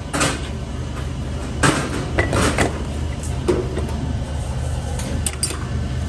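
Metal knocks and clatter from a worker handling the die of a small moulding press, several separate knocks spread through, over a steady low machine hum.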